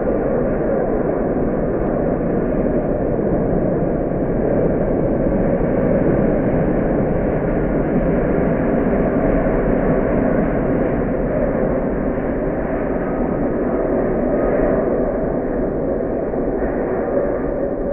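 Jet engines of a Boeing 767-300ER airliner on landing, heard as a steady low rush with no clear touchdown thump.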